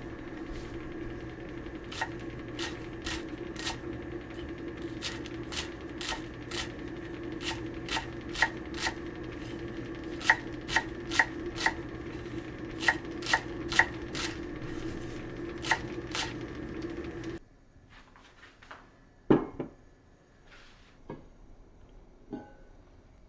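Kitchen knife chopping green onions on a thick end-grain wooden cutting board: about two dozen sharp knocks in short runs, roughly two a second, over a steady hum. The hum stops about three quarters of the way through, and a few scattered light knocks and clinks of tableware follow.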